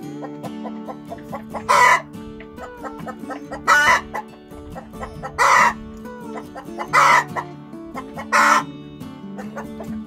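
Hens clucking, with five short, loud calls spaced about a second and a half to two seconds apart.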